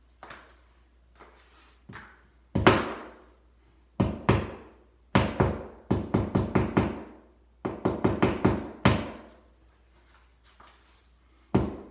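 Hammer tapping plastic wall anchors into the wall for a smoke alarm's mounting screws: a few single knocks, then two quick runs of about six blows each.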